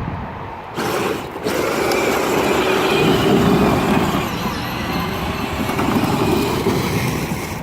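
Power Wheels Jeep on an 18 V battery driving, its electric drive motors and plastic gearboxes whining while its bare plastic wheels, without traction belts, spin and slide on the ground. The noise starts about a second in, breaks off briefly, then runs on steadily.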